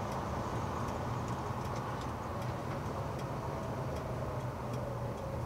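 Inside the cabin of a 1965 Chevrolet Malibu SS driving with a Muncie four-speed: a steady engine and drivetrain drone with faint ticks scattered through it. The gearbox runs quiet, with no gear noise, now that the input shaft end play is shimmed down to 16 thousandths.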